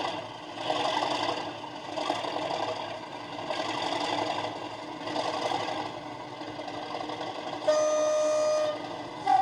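Model railway DCC sound decoder playing a Class 37 diesel locomotive through the model's small speaker: the engine sound running and swelling and fading in uneven waves. Near the end one horn note sounds for about a second, then a higher horn note starts just before the end, the two tones of the locomotive's horn.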